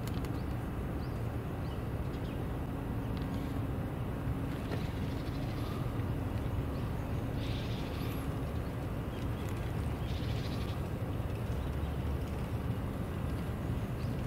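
A car driving along slowly: a steady low rumble of engine and road noise with a faint constant hum, and three short hissing sounds spread through the middle.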